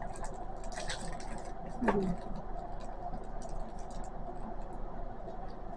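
Small clicks and rustles of a packet of paper clips being handled while one is worked out of it, with a short murmur from a voice about two seconds in, over a steady low hum.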